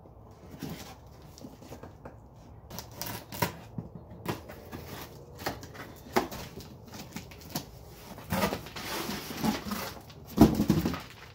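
A utility knife cutting packing tape and cardboard on a shipping box, with scattered scrapes and rips as the box is opened. From about eight seconds in comes a denser crinkling of a plastic bag as the packaged windscreen is pulled out, loudest just before the end.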